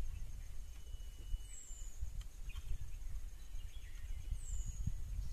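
Wind buffeting the microphone in a steady low rumble. Over it, faint bird calls: two short high whistles that fall in pitch, about three seconds apart.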